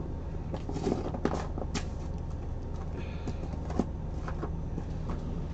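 Steady low room hum with a few faint clicks and rustles of small objects being handled out of view.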